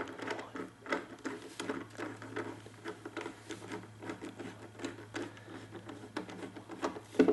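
Quick, irregular small clicks and scrapes of a screwdriver driving screws back into a Husqvarna 150BT backpack blower's housing. The screws are tightened in a staggered order.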